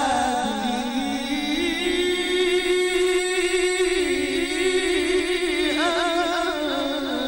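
A male qari reciting the Quran in the melodic mujawwad style. He holds one long note with wavering ornaments, then moves into a higher ornamented phrase about six seconds in.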